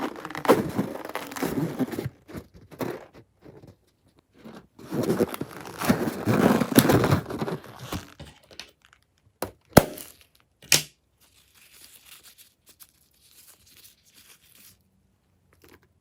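Slime-making materials handled by hand, with crackly, crinkling, tearing noise in two spells. Two sharp snaps come about ten seconds in, followed by faint scattered crackles.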